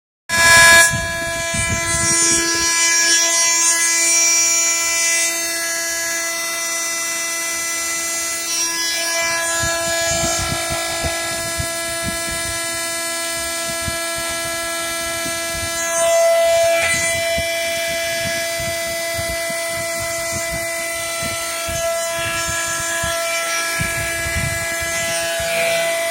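CNC milling machine cutting steel: a loud, steady high-pitched whine from the cutter, with harsher, noisier stretches of cutting a couple of seconds in and again about sixteen seconds in.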